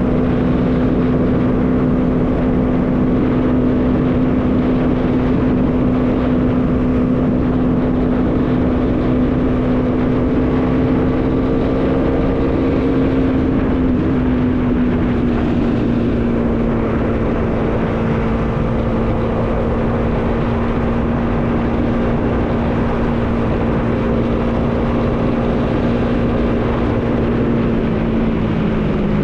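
Bajaj Dominar 400's single-cylinder engine running at a steady cruising speed, with wind noise over it. The engine note eases slightly lower about halfway through.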